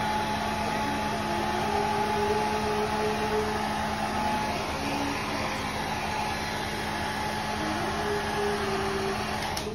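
Small handheld hair dryer blowing steadily with a low motor hum, switched off near the end.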